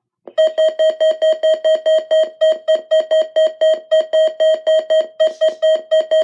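Midland WR-100 weather radio sounding its alert alarm for a test alert: a single steady tone beeping rapidly and evenly, a little over four beeps a second, starting about a third of a second in.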